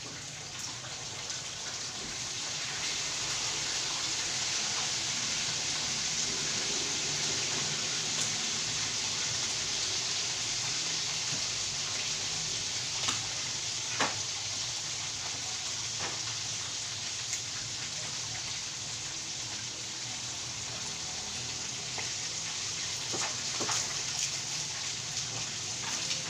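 Chicken pieces deep-frying in hot oil: a steady sizzle with a few sharp pops and crackles.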